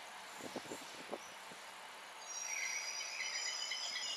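Wheels of a receding passenger train squealing: a high, wavering metal-on-metal squeal of several tones sets in about two seconds in, after a few faint clicks.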